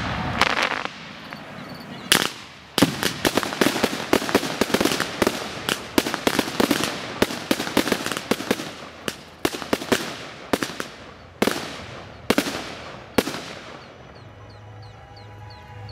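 Aerial fireworks bursting: a rapid string of bangs and crackles, densest from about three to nine seconds in, then a few single booms about a second apart, dying away near the end.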